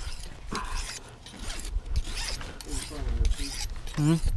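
Zipper on a black soft fabric case being pulled open in short rasping runs, with rustling as hands dig into the case.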